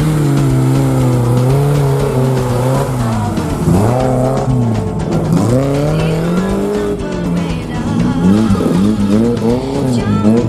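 Off-road 4x4 engines running and revving: a steady note for the first few seconds, then pitch sweeping up and down, with quicker rev blips near the end. Background music plays along.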